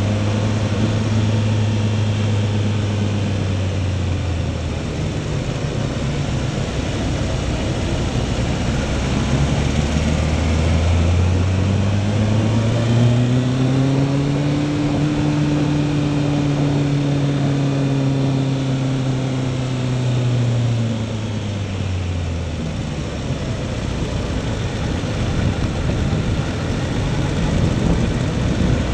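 Motorcycle engine running, heard from the bike's own onboard camera. The engine note rises about ten seconds in as the bike speeds up, holds, then drops a little after twenty seconds as it slows. Wind and road rush continue underneath.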